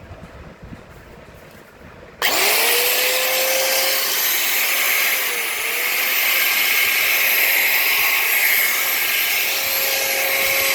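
Bosch GDC 120 marble cutter switched on about two seconds in. It spins up quickly and runs steadily at full speed with a loud, high whine, and its pitch dips briefly about halfway through. It is running on a freshly replaced motor bearing.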